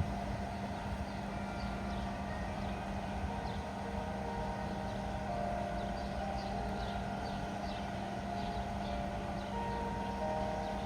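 Church bells ringing, several different pitches sounding one after another, each ringing on, over a steady low hum.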